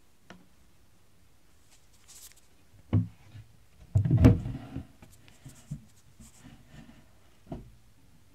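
Handling noise from the filming phone: a sharp knock about three seconds in, a louder cluster of knocks and rubbing about four seconds in, and one more knock near the end.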